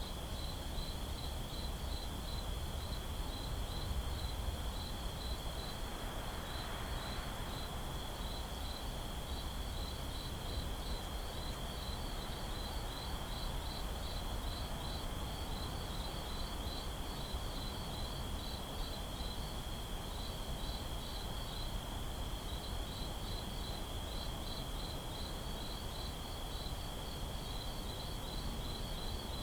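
Night ambience of crickets: a steady high-pitched trill with rapid chirping pulses over it, continuous and even, above a low background rumble.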